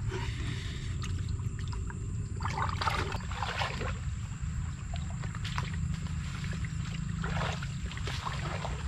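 Shallow muddy floodwater splashing and sloshing in two bursts, about two and a half seconds in and again near the end, as a man wades and works with his hands in it, over a steady low rumble.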